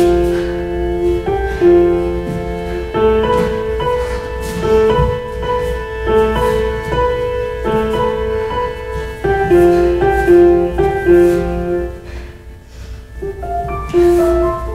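Piano music, a run of sustained notes and chords changing every second or so.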